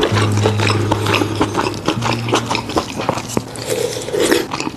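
Close-miked eating: wet slurping, chewing and mouth clicks as a scallop and its vermicelli topping are sucked off the half shell. Background music with low held notes that change about two seconds in runs underneath.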